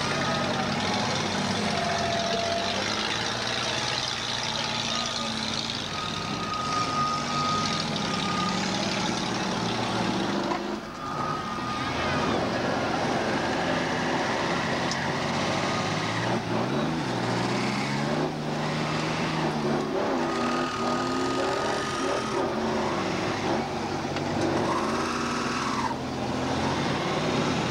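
Several demolition derby cars' engines running and revving, their pitch rising and falling over a dense, continuous din.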